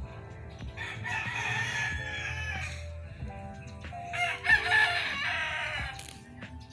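Rooster crowing twice, each crow lasting about two seconds.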